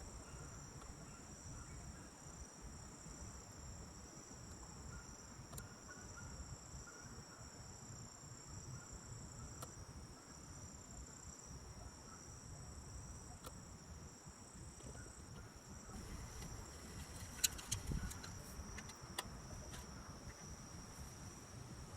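Faint, steady high-pitched insect trilling, like crickets, with a few short clicks and knocks about two-thirds of the way through.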